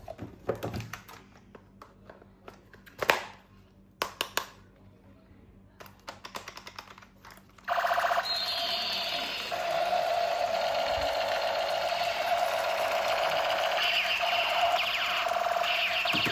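Plastic clicks and taps from a toy being handled. About eight seconds in, a loud electronic toy sound effect switches on suddenly and keeps going, with steady buzzing tones.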